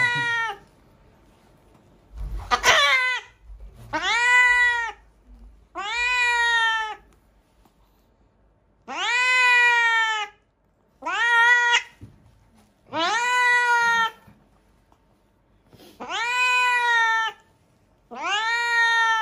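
Tomcat meowing loudly and repeatedly, one long call about every two seconds, each rising and then falling in pitch. It is a call the owner says he has never made before.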